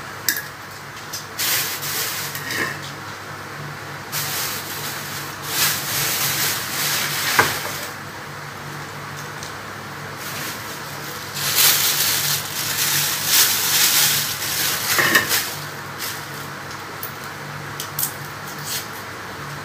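A plastic bag crinkling and rustling in irregular bursts as it is handled and opened by hand, over a steady low hum.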